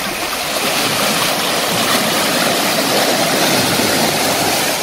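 Small sea waves breaking and washing up over a pebble beach, a steady rushing hiss that swells through the middle and eases near the end.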